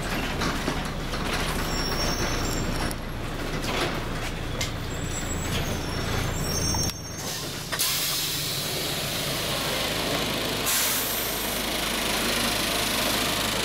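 Scania MaxCi low-floor city bus pulling in to a stop, its engine running under rattles inside the cabin. About eight seconds in comes a sudden, long hiss of compressed air from the bus's air system.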